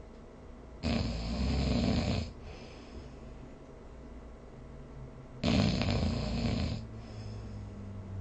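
A sleeping person snoring: two loud snores, each about a second and a half long and about four and a half seconds apart, each followed by a softer breath.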